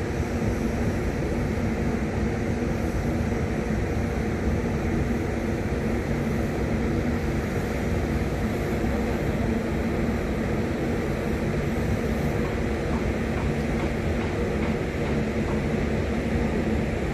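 A steady, unchanging low mechanical rumble with a constant hum running through it.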